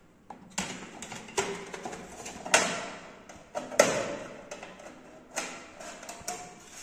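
Plastic clicks and knocks as the cover of a split air conditioner's control box is fitted back on and snapped shut. Several irregular clicks, the two sharpest about two and a half and four seconds in.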